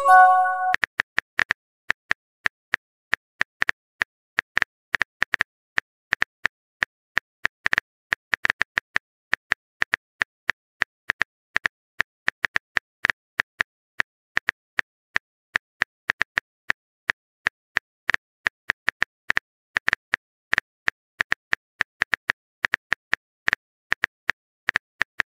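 Smartphone on-screen keyboard click sounds, a long irregular run of short taps, a few a second, as a message is typed letter by letter. It opens with a brief multi-note incoming-message chime.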